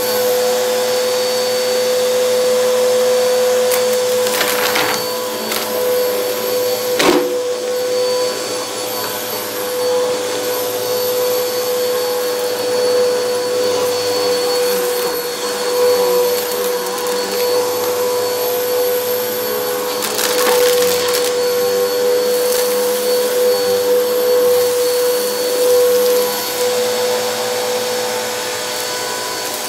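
Helix Turbo upright vacuum cleaner running on carpet with a steady whine. A few short crackling rattles and one sharp click come as clumps of debris are sucked up.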